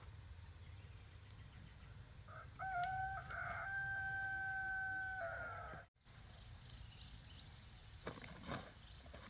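A rooster crowing once: one long call of about three seconds, beginning a little over two seconds in and falling off at the end, over a low steady background rumble.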